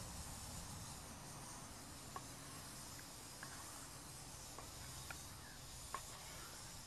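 Faint steady hiss with a handful of small scattered pops, from eggs cooking in a pan over a homemade denatured-alcohol can stove.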